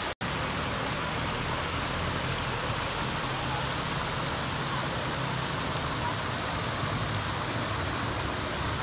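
Small spring-fed mountain stream running over rocks: a steady rush of water.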